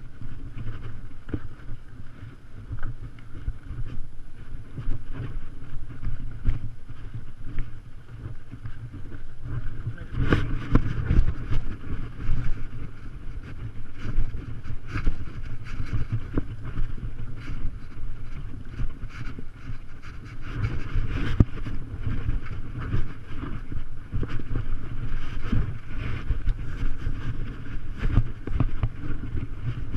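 Muffled rumble and wind noise on a GoPro Hero 3 worn by a rider on a walking horse, with irregular knocks and clicks from the jolting ride; louder for a couple of seconds about ten seconds in and again near the twenty-first second.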